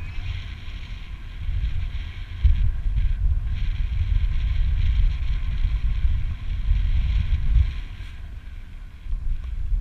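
Wind rushing over the microphone of a tandem paraglider's camera in flight, a low buffeting rumble that gets louder about two and a half seconds in and eases near the end.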